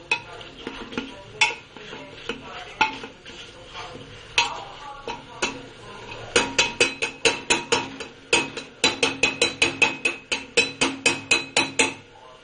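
Metal masher knocking against a metal pot while mashing tomatoes into a paste. A few scattered ringing knocks come first, then about six seconds in a fast, regular run of strikes, about four a second.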